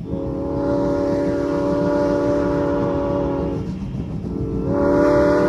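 Steam locomotive whistle, Norfolk & Western No. 475's chime whistle, sounding a chord of several notes in two long blasts: the first held for about three and a half seconds, the second starting about a second later and still sounding at the end. A low rumble from the train runs underneath.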